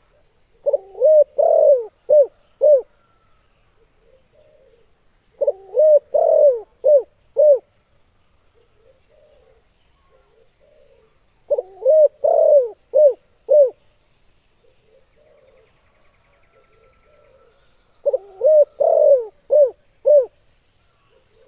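Spotted dove (tekukur) cooing: four phrases of about five coos each, one every six seconds or so, with faint softer coos in between.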